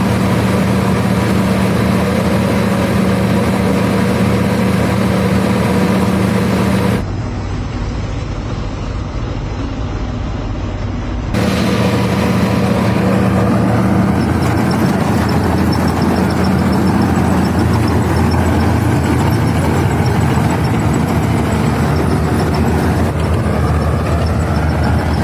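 Swaraj 855 tractor's diesel engine running steadily while driving a K S combine harvester. About seven seconds in, the sound turns duller and quieter for about four seconds, then the steady running resumes.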